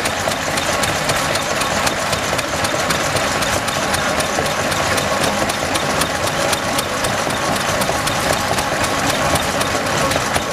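Lister stationary engine running steadily, belt-driving a small Lee, Howl & Co. bucket-type pump, with a continuous even mechanical clatter.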